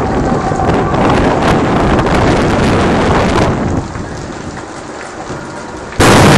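Loud rushing, crackling noise of a large building fire, easing off about four seconds in. Near the end a sudden loud blast as an oxygen cylinder in the blaze explodes, its noise carrying on without a break.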